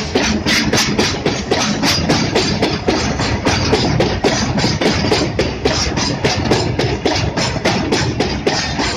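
Freight train wagons rolling past close by, their steel wheels clacking quickly and evenly over the rail joints over a steady rumble.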